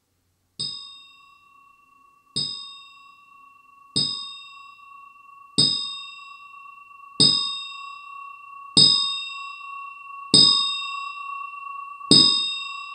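Roland TAIKO-1 electronic taiko drum playing its DarkAmbient sound bank: eight evenly spaced strikes, about one every 1.6 seconds. Each strike is a bright bell-like ding over a short low thud. From the first strike on, two steady high tones sustain beneath as a held drone, the bank's slowly building ambient pad.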